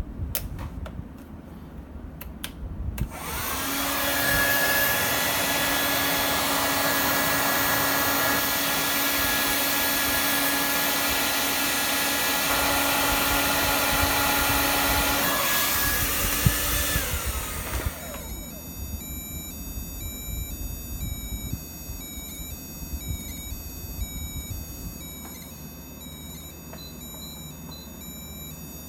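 After a few clicks, a hair dryer runs steadily for about fourteen seconds, then winds down. About a second later an electronic buzzer begins beeping a repeating pattern of high tones that step up and down: the heatstroke alarm going off as the heat index reaches the danger level.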